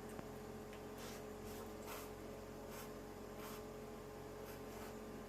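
Faint, soft scraping or rustling strokes, about one or two a second, over a steady low hum.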